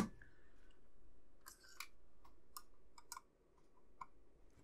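A few faint, scattered light clicks and taps of small plastic scale-model parts and tools being handled on a workbench.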